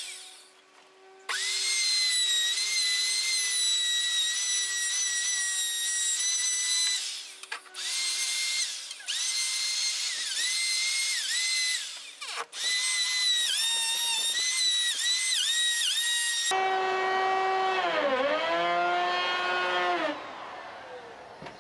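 Electric router running at high speed, a steady high whine that dips in pitch whenever the bit bites into the plywood edge being trimmed. It stops and restarts three times. For the last few seconds a lower-pitched motor tone runs instead, dipping once, before cutting off.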